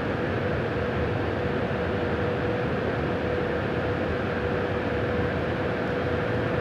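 KC-135 Stratotanker cockpit noise in cruise flight: a steady rush of engine and airflow noise with a thin, steady tone running through it.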